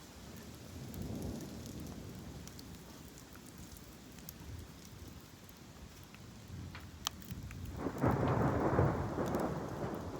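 Thunder rumbling during a thunderstorm: a soft low rumble about a second in, then a much louder rumble starting about eight seconds in. Scattered sharp ticks, as of raindrops, are heard through it.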